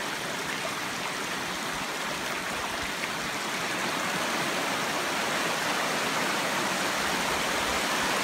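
Shallow rocky stream rushing over flat rock slabs and stones, a steady noise that grows a little louder in the second half.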